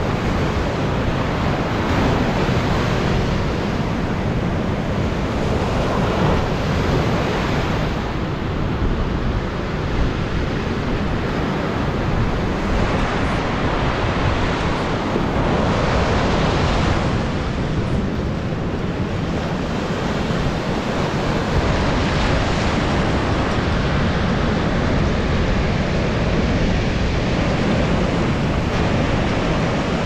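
Storm surf breaking and washing up the sand, a steady rush that swells each time a wave breaks, with gusts of wind rumbling on the microphone.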